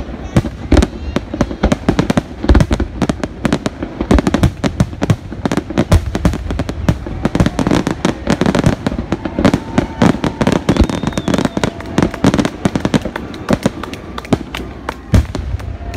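Grand finale of an aerial fireworks display: a rapid, near-continuous barrage of shell bursts, several bangs a second, with crackling between them.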